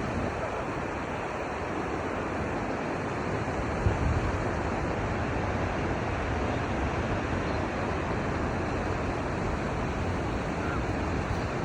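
Pacific Ocean surf rushing steadily, with some low wind rumble on the microphone.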